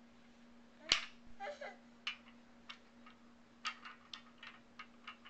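Wooden beads clacking on the wire loops and wooden base of a toddler's bead maze toy as they are pushed around: one sharp clack about a second in, then a string of lighter, irregular clicks.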